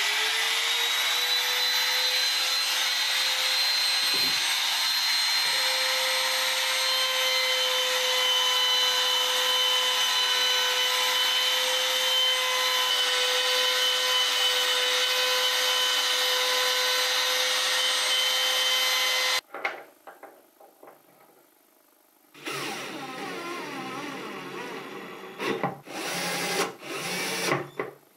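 Compact trim router running at full speed with one steady high whine as it cuts hinge recesses in chestnut wood; it cuts off suddenly about two-thirds of the way through. Near the end, a cordless drill driver runs in several short bursts, driving screws into the brass leaf hinges.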